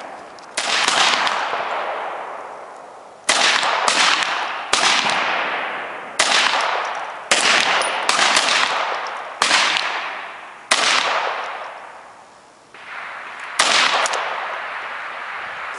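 Single pistol shots, about ten of them at irregular gaps of one to two seconds, each sharp crack trailing off in a long echo.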